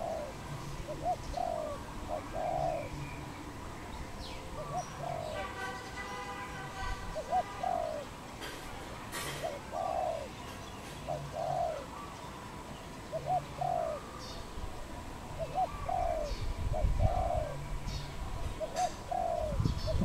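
Spotted dove cooing: phrases of two or three coos repeated every couple of seconds.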